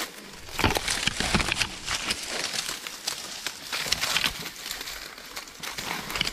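Dry grass crackling and rustling as someone climbs through it on a rocky slope, with steps on grass and rock: an irregular run of many short, sharp crackles.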